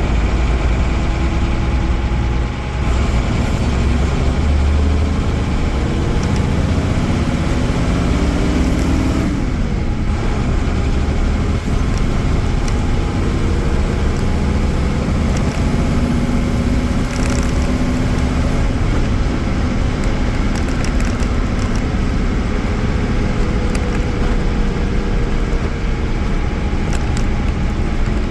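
Mercedes-Benz OM-366A inline-six diesel engine of a Mercedes-Benz OF-1318 bus, running under way. Its pitch climbs steadily as the bus accelerates, drops sharply about nine seconds in, then rises and falls again.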